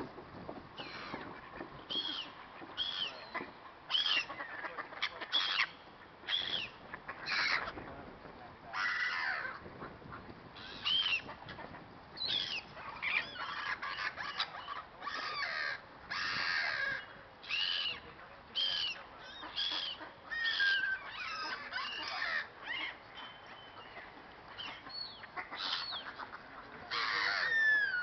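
Gulls calling: a run of short, harsh cries, about one or two a second, with a louder stretch of calls near the end.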